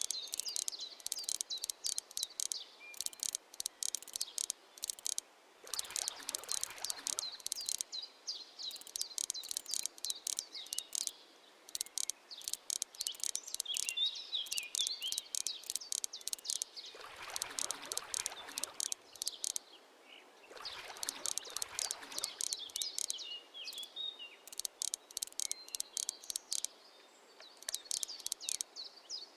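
Crickets chirping in repeated rapid trains of high clicks, stopping and starting in bouts, with a few bird chirps. Three short rushes of broad noise come through, about six seconds in and twice more past the middle.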